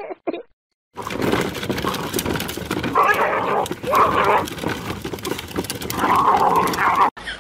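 A boxer dog vocalizing with rough growling sounds in three bursts, the last one longer, over a crackling background.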